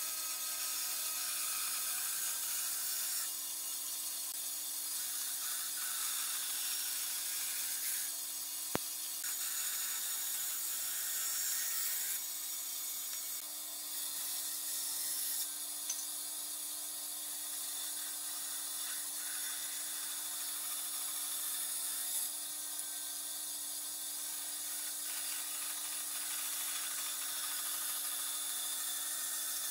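Bandsaw running with a steady motor hum while its blade cuts through a wooden board, giving a high cutting noise that shifts several times as the cuts go on. A single sharp click comes about nine seconds in.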